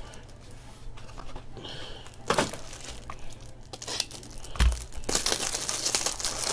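Foil wrapper of a 2018 Topps Tier One baseball-card pack being handled and torn open: faint rustles at first, then steady crinkling and tearing of the foil from about five seconds in, with a dull thump shortly before.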